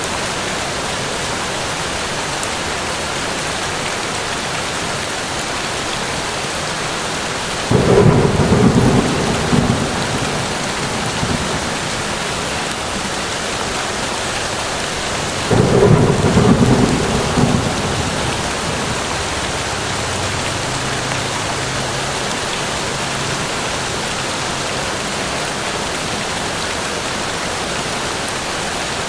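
Steady rain falling, with two peals of thunder breaking in, about eight seconds in and again about sixteen seconds in. Each peal is deep and fades away over a few seconds.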